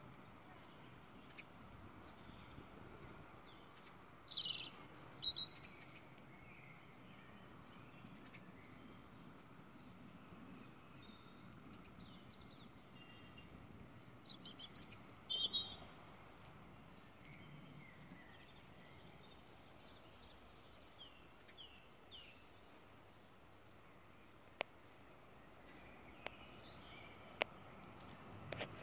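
Songbirds singing, repeating short high phrases every few seconds, with two louder bursts of calls about five and fifteen seconds in. Underneath is faint, steady outdoor background noise.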